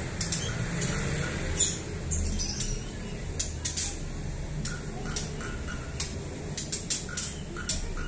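White-rumped shamas (murai batu) giving short, sharp calls, about fifteen at irregular intervals, over a steady low hum.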